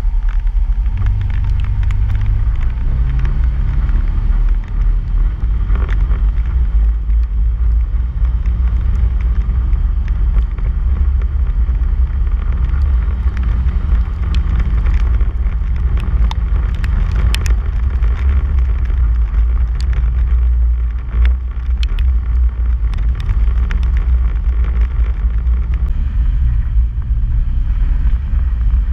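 Polaris RZR side-by-side driving along a dirt trail: a steady engine drone over a heavy low rumble, its pitch shifting slightly as the throttle changes. Scattered sharp clicks and ticks from the rough, rocky track come mostly through the middle stretch.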